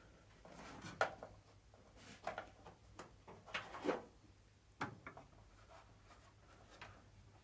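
Faint handling noises as plastic washer hose is fed and pulled through a car's painted steel inner wing: a few light knocks and rubs, loudest about a second in and just before the four-second mark, over a low steady hum.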